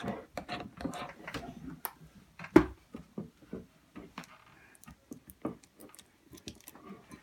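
Sticky glue-and-borax slime being stirred in a bowl: a quick irregular run of wet clicks and ticks, with one louder knock about two and a half seconds in.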